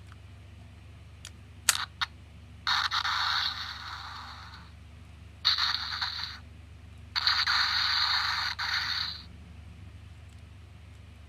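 Repair work on a small plastic toy: a few sharp clicks, then three harsh, hissing scraping noises lasting one to two seconds each.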